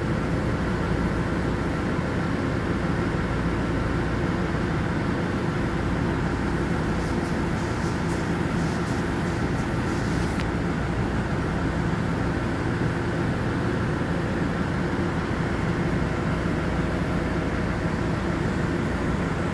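Steady idling drone of stationary trains, chiefly the diesel engines of a DR3000 diesel multiple unit, with several steady hum tones under it. Some crackly handling noise on the microphone comes from about seven to ten seconds in.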